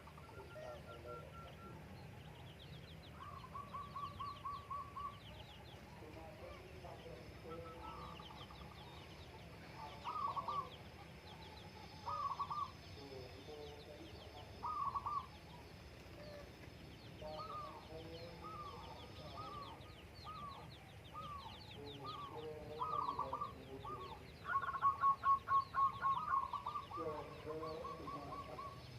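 Birds calling, among them a zebra dove (perkutut) giving its cooing song of short, quickly repeated notes, again and again, with the loudest run of calls near the end.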